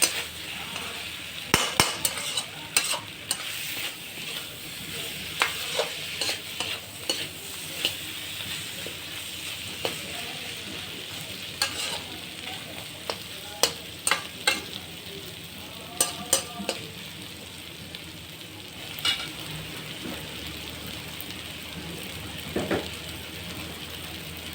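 Chicken curry frying and sizzling in a kadai while being stirred, with a spoon scraping and knocking against the pan in short, irregular clicks.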